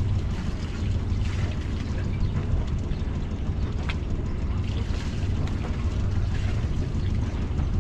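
Sailboat's inboard diesel engine idling steadily, with a brief click about four seconds in.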